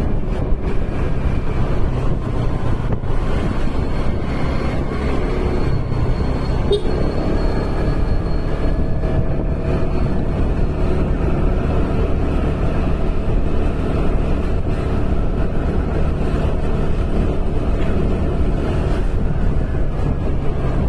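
Steady low rumble of a running vehicle, even throughout, with faint steady tones above it.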